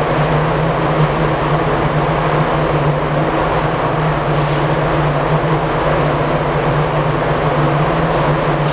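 Spray-booth exhaust fan running with a steady drone: a strong low hum under an even hiss.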